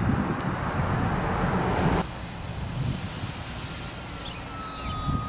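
Wind rumbling on the microphone, cutting off abruptly about two seconds in. Then the thin, steady whine of an electric RC warplane's motor comes in, growing stronger near the end.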